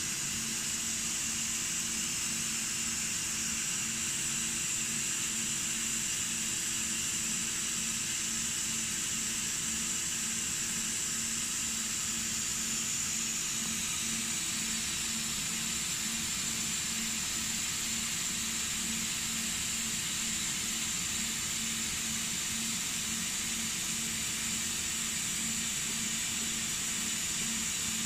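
Disco DAD3350 dicing saw running: a steady hiss with a high whine, over a faint low hum that pulses evenly.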